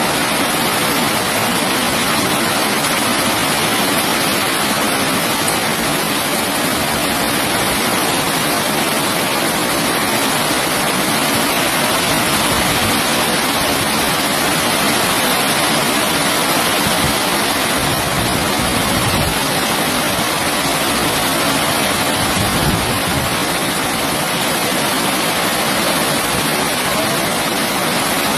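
Heavy rain falling steadily: a dense, even hiss of rainfall that holds at one level throughout.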